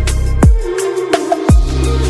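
Electronic background music with heavy bass: deep kick-drum hits about once a second over sustained bass notes.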